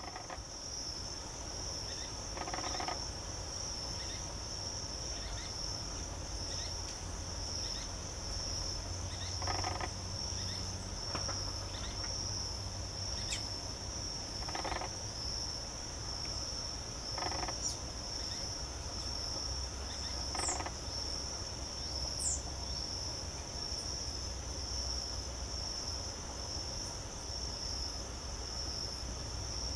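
Steady high-pitched insect chorus running without a break. Several short, thin, downslurred high bird calls sound in the middle and latter part, along with a few brief soft rustling bursts.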